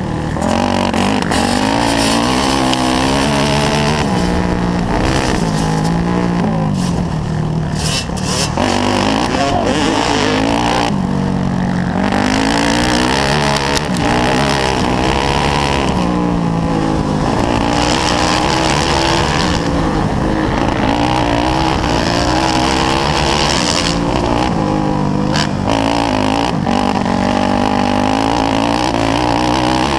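Yamaha YZ400F's four-stroke single-cylinder engine at full racing pace, revving up and falling back over and over, under a steady rushing noise.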